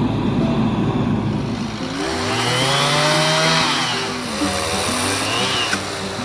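Small gasoline engine revving up and then back down twice, over background music.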